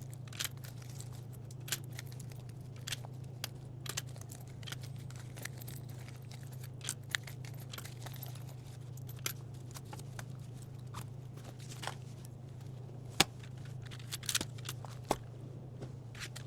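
Drinks being handled and stocked into a vending machine: scattered sharp clicks and clinks of bottles and cans, one louder knock near the end, over a steady low hum.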